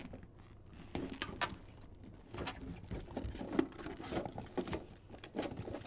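A hand rummaging through a leather handbag: irregular rustling, with small knocks and clicks from the things inside.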